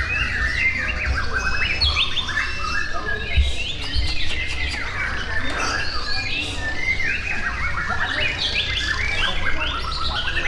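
Many caged songbirds singing at once in a songbird contest: dense, overlapping chirps, trills and whistles with no pause, over a low steady rumble.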